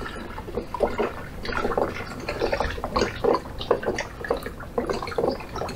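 Spirit being poured from a bottle into a jar of cranberries for a tincture, splashing in short, irregular spurts.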